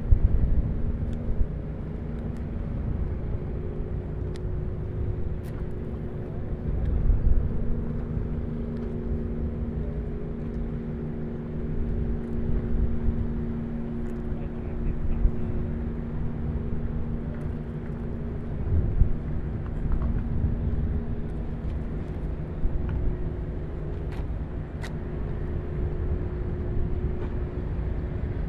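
Low, steady engine drone of a ship on the water, with a continuous hum and a rumble that swells now and then.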